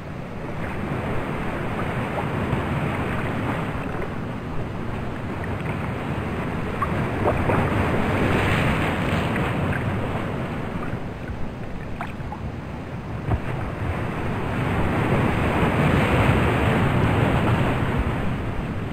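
Ocean surf: waves washing in, the rushing noise swelling and fading twice, with a few faint clicks.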